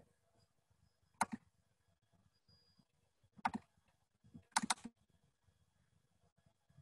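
A few sharp clicks at a computer, in three short groups: a pair about a second in, one at about three and a half seconds, and a quick run near five seconds, over faint room tone.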